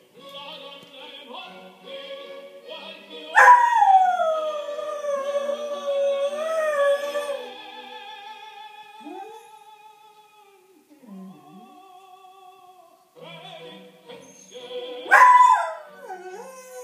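Dalmatian howling along to opera music playing from a television. It gives two loud howls: one about three seconds in that slides down in pitch and holds for about four seconds, and a shorter one near the end that rises and then drops sharply. The opera music plays more quietly underneath.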